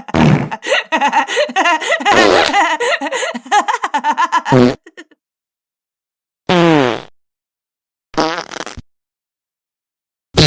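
Fart sound effects. A long, rapid stuttering run of pulses lasts about four and a half seconds and stops suddenly. After a pause come two short farts, each falling in pitch, about a second and a half apart.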